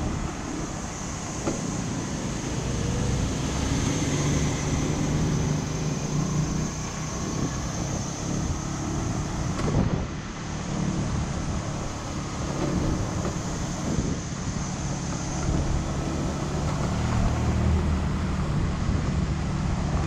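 Motorbike engine running, its low hum rising and falling in pitch as the speed changes.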